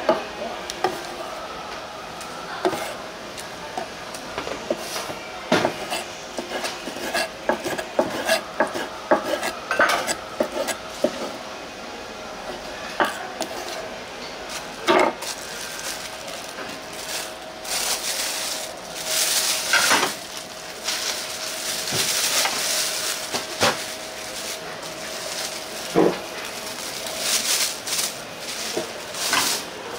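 Kitchen utensils and dishes clattering at a food stall: irregular knocks and clinks of metal and crockery, with a stretch of hissing about two-thirds of the way in.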